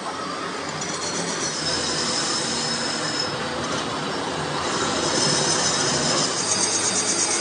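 Metal lathe turning a tractor differential case: the cutting tool scraping the spinning workpiece with a high-pitched squeal over the machine's running, growing louder toward the end.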